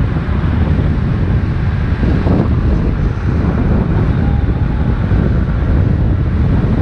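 Heavy wind rumble buffeting the microphone of a camera moving at road speed, loud and steady.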